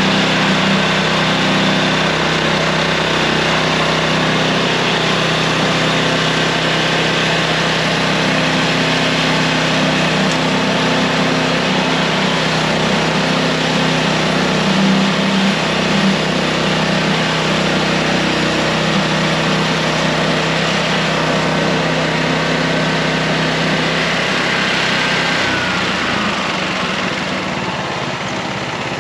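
Small gas engine of a Harbor Freight band sawmill running steadily under load, with a dense hiss over the engine note as the blade cuts a sweetgum log. About 25 seconds in, the pitch falls and the engine note changes as it slows.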